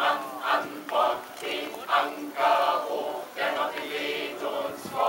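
Mixed choir of men and women singing together, phrases rising and falling in short sung lines.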